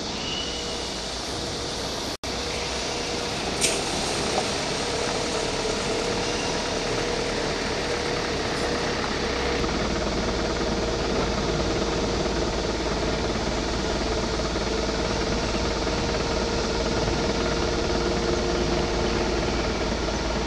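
Steady mechanical drone with a constant hum, like a running engine or machinery, with a brief dropout about two seconds in. A deeper rumble comes in about halfway through and stays.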